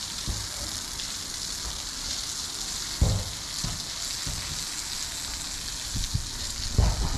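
Water spraying from a garden hose onto a concrete yard: a steady hiss. A dull low thump comes about three seconds in and another near the end.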